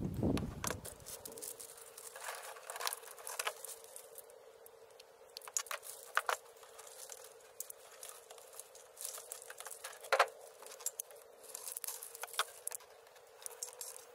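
Split corrugated plastic wire loom being worked over a cable by hand: scattered, irregular clicks and crinkles of plastic, with a few sharper snaps.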